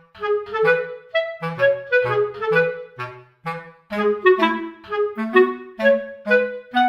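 Background music: a bouncy tune of short, separate notes over a bass line.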